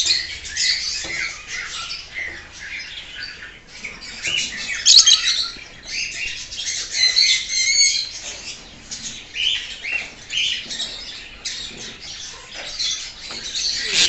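Many caged lovebirds chirping and squawking together: a constant chatter of short, high, overlapping calls.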